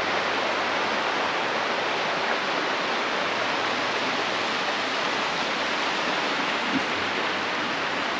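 Fast-flowing river rushing steadily, an even, unbroken wash of water noise.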